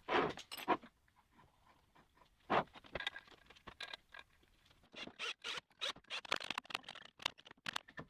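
Small metal parts of a lathe tool turret clicking and scraping as they are fitted together by hand, in short irregular bursts, with a busier run of clicks from about five seconds in.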